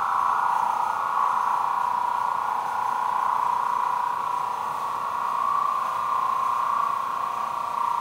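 Vacuum pump cart running with a steady, even drone.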